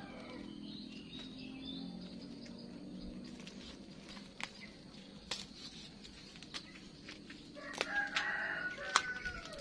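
A rooster crowing near the end, over a soft outdoor background, with a few sharp clicks scattered through the middle and end.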